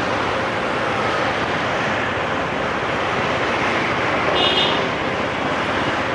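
Steady street traffic noise with wind rushing over the microphone. A short high-pitched beep sounds about four and a half seconds in.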